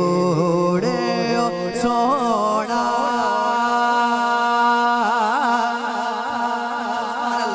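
Male voice singing a Punjabi naat, drawing out a long melismatic line: wavering notes with vibrato, then a note held steady for about two seconds before the vibrato returns.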